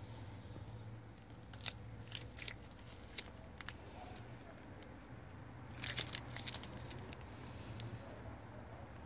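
Faint scattered clicks and crackles from a gloved hand squeezing a tube of grease onto an outboard's propeller shaft splines, with a low steady hum underneath. The sharpest click comes about a second and a half in, and a quick run of crackles follows about six seconds in.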